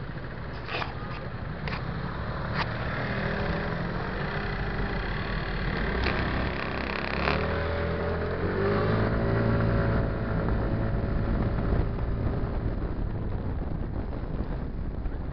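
MBK Tryptik three-wheel scooter's engine running at a standstill amid city traffic, then speeding up as the scooter pulls away about eight seconds in. A few sharp clicks come in the first seconds.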